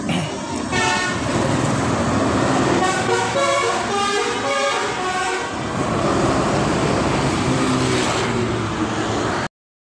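Bus 'telolet' horn, a multi-tone musical horn, playing runs of stepped notes twice over bus engine and traffic noise; the sound cuts off abruptly near the end.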